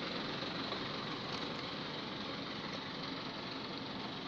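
Steady engine noise of an idling motor vehicle, even and unbroken, with no distinct knocks or events.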